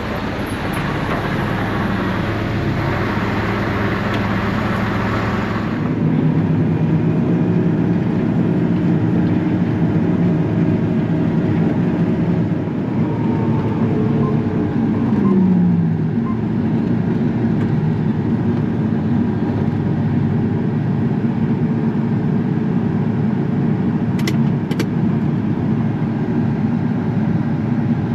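Large diesel engine of heavy field machinery running steadily under load; its pitch drops about halfway through and starts climbing again at the end.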